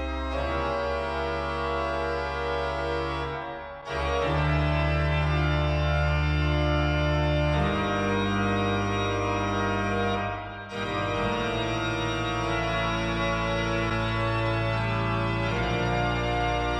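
Organ music played back over Elfton Vegas II hi-fi loudspeakers in a room: long sustained chords over a deep bass, changing chord about 4 s and 8 s in. The sound dips briefly twice, about 4 s and 10.5 s in.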